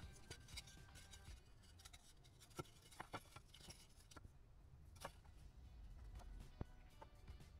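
Faint background music with a few light, sharp clicks and taps, some of them close together.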